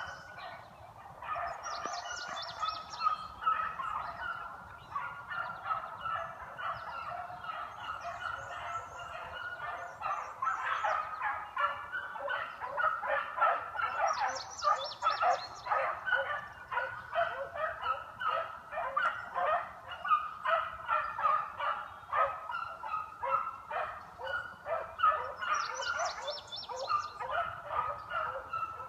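A pack of beagles baying in full cry, many voices overlapping in a continuous chorus of rapid, repeated calls: the sound of hounds running a scent trail.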